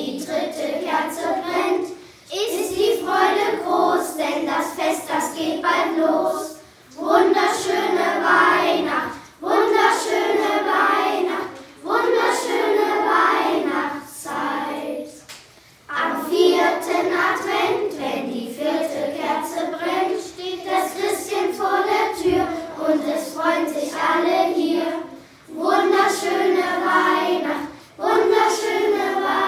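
A children's choir of primary-school pupils singing a German Advent song together, in phrases with short breathing pauses between them.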